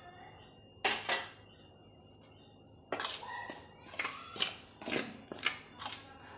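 Hand mixing water into wheat flour in a steel bowl to form dough: short rustling, scraping strokes, a pair about a second in, then a run of about two a second from about three seconds in.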